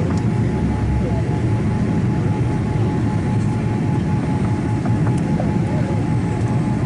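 Steady cabin noise of a Boeing 787-8 airliner in flight, heard from a window seat: a low, even rumble of airflow and engines, with a faint steady whine above it.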